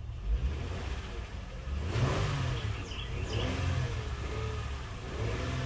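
2006 Honda Odyssey's V6 engine revved in reverse gear, the revs climbing about two seconds in and then rising and falling, while the automatic transmission barely grabs. The transmission is slipping and has failed, which the mechanic puts down most likely to a clogged transmission cooler-line filter.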